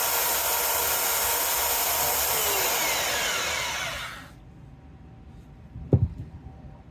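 Electric belt sharpener running while a new point is ground onto a knife blade, then switched off, its whine falling in pitch as it spins down to a stop about four seconds in. A single knock follows near the end.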